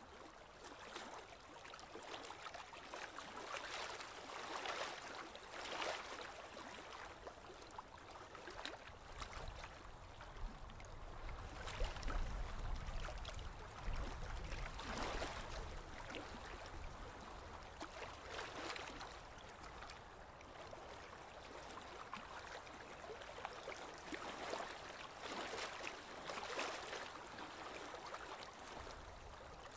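Water splashing and rushing against a moving boat's hull, in uneven surges every second or two, with a low rumble about halfway through.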